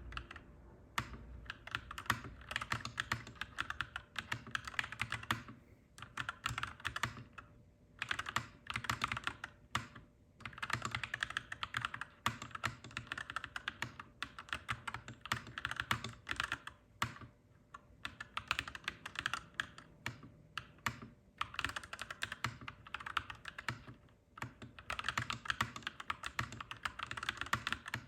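Clacky mechanical keyboard being typed on in quick, continuous runs of keystrokes, broken now and then by short pauses.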